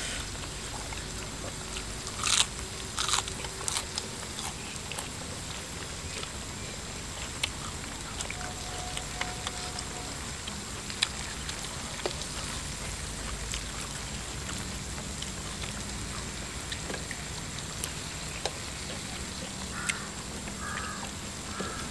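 Eating sounds at a moo kratha pan: chewing and scattered clicks and taps of chopsticks against the metal pan, with a sharper clatter about two seconds in, over a steady low hiss.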